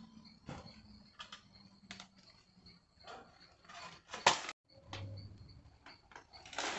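Machete chopping a tree branch: a string of irregular knocks, several seconds apart, the loudest a little past the middle.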